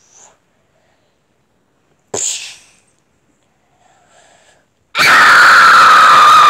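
A short, sharp breathy burst about two seconds in, then a loud scream held at one high pitch for about two seconds near the end.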